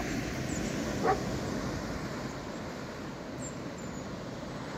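Steady wash of ocean surf and wind, with one short, loud animal call about a second in.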